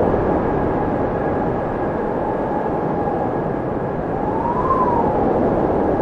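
Blizzard wind blowing steadily, a dense rushing noise with a faint whistling tone that rises and falls about four seconds in.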